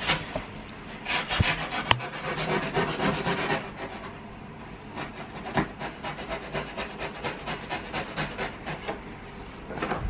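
A box cutter sawing through the corner of a corrugated cardboard box: a dense scratchy stretch in the first few seconds, then short rasping strokes about three a second.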